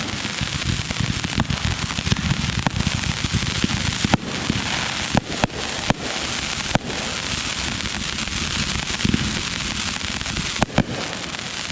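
Fireworks going off: a dense, continuous crackle with sharp bangs scattered through it, the loudest about four seconds in and near the end.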